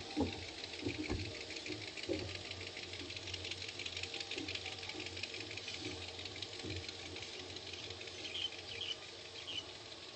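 A small motorboat's engine running out on the harbour: a steady low hum under a fast, even ticking, with a few short chirps near the end.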